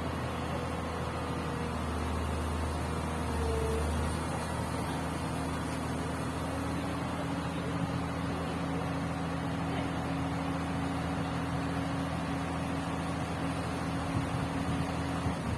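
Komatsu PC200 hydraulic excavator's diesel engine running steadily, with a faint whine in the first few seconds.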